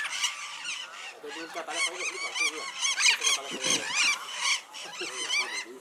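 Austral parakeets chattering and chirping: a quick, dense run of short, high-pitched chirps, each rising and falling, that thins out near the end.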